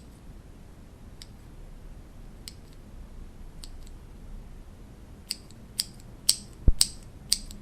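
Keys of a mechanical keyboard with linear Cherry MX switches being pressed: a few scattered keystrokes, then a quicker run of louder ones in the second half, with one heavier keystroke among them.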